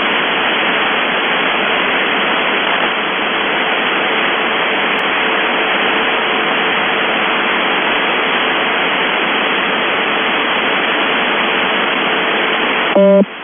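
Shortwave radio static: steady hiss from a receiver tuned to UVB-76 ('The Buzzer'), with a faint steady tone under it. Near the end the station's buzz starts, a low, rasping buzz louder than the static.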